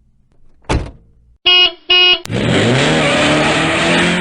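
A thud, then two short beeps of a car horn, then a car engine starting loudly and revving, its pitch rising over about a second and then holding steady.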